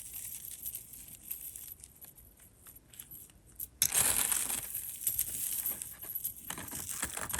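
Crinkling, rustling handling noise with small light clicks as jewelry and chains are sorted by hand; a louder rustle comes about four seconds in and again near the end.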